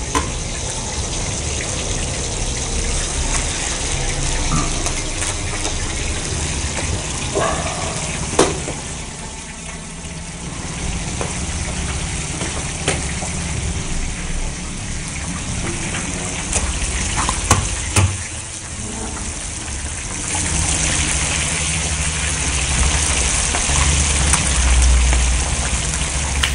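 Chapli kababs frying in hot oil in a large karahi, a steady sizzling hiss. Sharp clicks of a metal spatula against the pan come now and then. A low rumble swells near the end.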